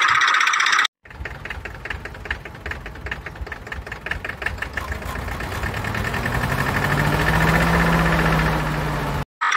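Diesel tractor engine sound knocking at idle, about five knocks a second, then building steadily in loudness and revs. Background music plays briefly at the start and returns right at the end.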